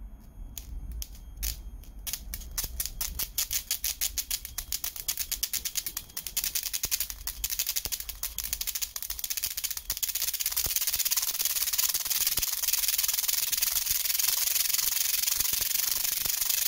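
Homemade electrostatic motor running on a high-voltage module as the voltage is raised: sharp ticks, few at first, come faster and faster and by about ten seconds in merge into a continuous high crackling hiss as it spins up.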